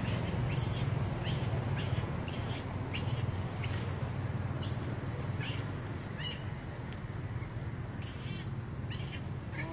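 Small bird chirping over and over in the trees: short, high, falling chirps at two to three a second, growing sparser about halfway through, over a steady low rumble.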